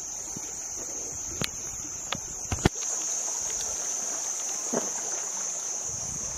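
Insects droning steadily on one high pitch, with a few sharp knocks between about one and a half and three seconds in, the last the loudest.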